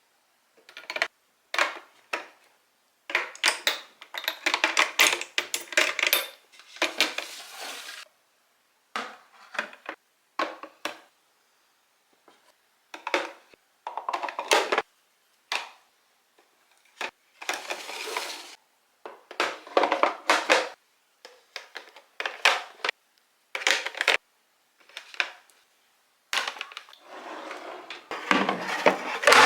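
Short runs of clattering and clinking as hard items are handled and set down on a surface, broken up by abrupt gaps of silence.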